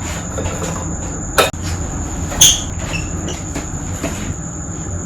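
A knife knocking and clicking against a baking dish while a slice of banana bread is cut: two sharp clicks a second apart, then a few lighter ticks, over a steady low hum and a faint high-pitched whine.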